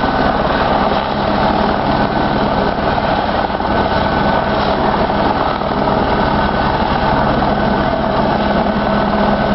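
Firefighting helicopter running steadily and loudly, its rotor beating in rapid, even pulses under a constant engine tone.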